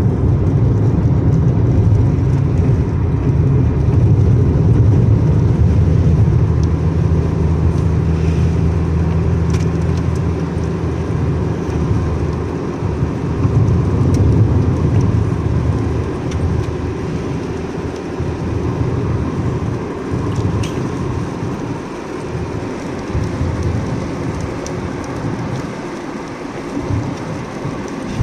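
Car cabin noise while driving on a wet road: steady engine and tyre rumble, with a few faint ticks. The even engine hum breaks up about twelve seconds in and the rumble eases a little.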